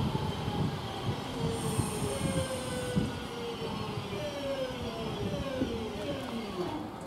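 West Midlands Railway Class 323 electric multiple unit running along the line as it slows. Its traction motors whine in several tones that fall in pitch, over a wheel and rail rumble that starts loud and fades.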